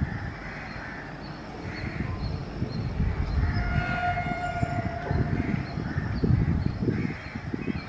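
WAP 7 electric locomotive's horn sounding one long, steady blast about three seconds in, heard from a distance, over a low rumble. Crows caw on and off.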